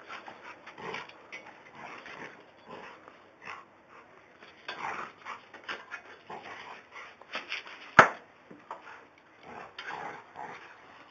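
A boxer and a golden retriever play-fighting, making a run of short, irregular dog noises and scuffling sounds. A sharp knock about eight seconds in is the loudest sound.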